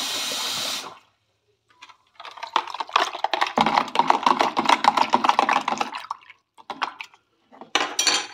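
Running water cuts off about a second in. Then a spoon stirs sugar into water in a plastic measuring jug: a quick run of clicking and scraping for about four seconds, with a short burst more near the end.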